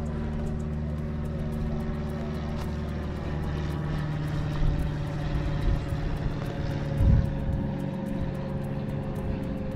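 A steady engine drone with a low hum, its pitch sinking slightly through the second half, and a brief low thump about seven seconds in.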